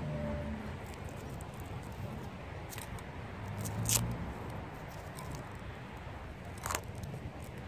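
Outdoor background noise: a steady low rumble with a few sharp clicks, three of them spread over several seconds.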